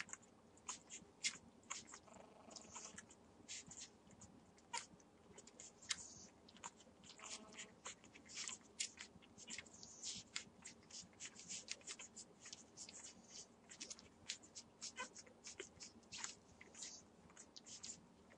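Six-day-old Entlebucher Mountain Dog puppies nursing: quick, faint sucking and smacking clicks, several a second, with a couple of brief faint squeaks from the puppies.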